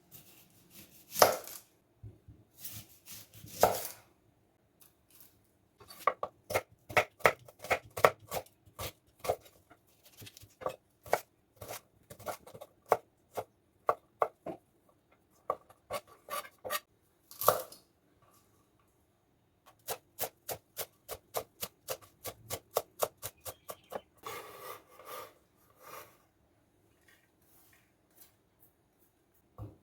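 A kitchen knife chopping vegetables on a cutting board, in runs of quick strokes about four a second, broken by pauses and a few louder, longer scraping sounds.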